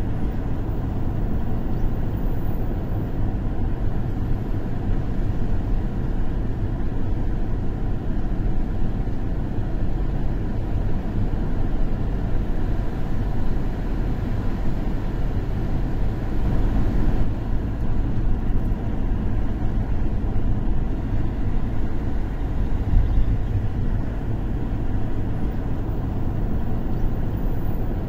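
A car driving slowly on a wet road, heard from inside the cabin: a steady low rumble of engine and tyres.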